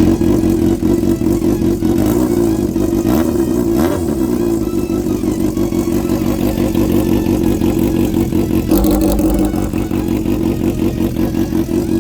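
Motorcycle engine running through a silencer modified for a louder, 'crying' exhaust note, with a steady pulsing beat and slight rises and falls in revs; the note shifts about nine seconds in.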